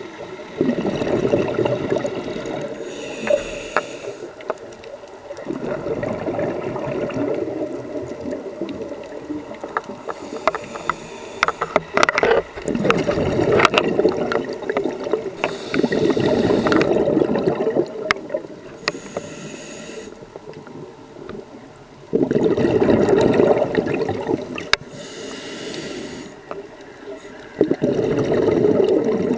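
Scuba diver breathing through a regulator underwater, about six breaths: a short high hiss as air is drawn in, then a long bubbling rush of exhaled bubbles.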